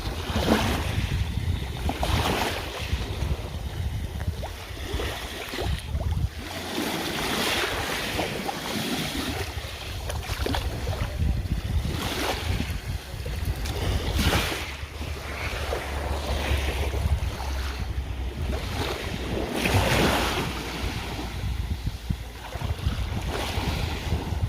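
Sea waves breaking and washing in, swelling and falling back every few seconds, with wind rumbling on the microphone.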